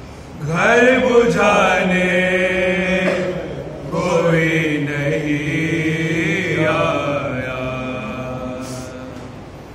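A man's voice chanting a marsiya, an Urdu lament, unaccompanied, in two long held phrases that waver in pitch, with a short break for breath about three and a half seconds in.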